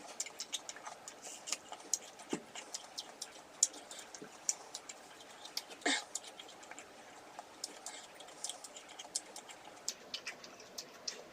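Close-miked chewing of crisp, watery wax apple (makopa): a steady scatter of small wet clicks and crunches, with one louder crunch about six seconds in.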